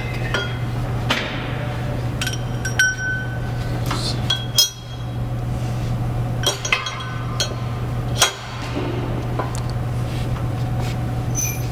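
Steel parts clinking and knocking against the cast-iron plates of a shop press as a pump shaft and new bearing are set in place: about a dozen irregular sharp metallic clinks, some ringing briefly, over a steady low hum.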